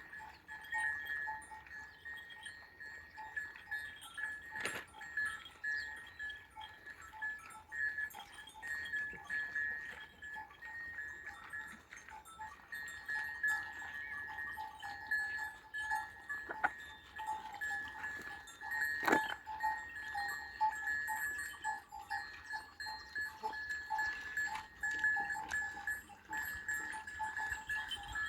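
Bells on a grazing flock clanking irregularly and without a break as the animals move, with a few sharp knocks.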